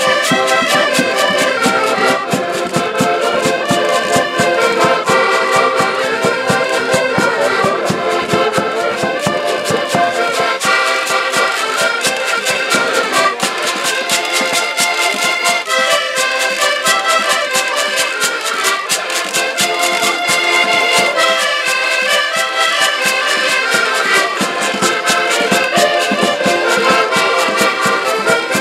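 Portuguese folk music played on four diatonic button accordions, with a hand-held drum keeping a steady beat.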